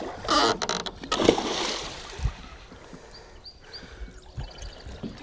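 A musky thrashing at the surface beside the boat as it is being netted, splashing hard for about the first second and a half, then quieter sloshing.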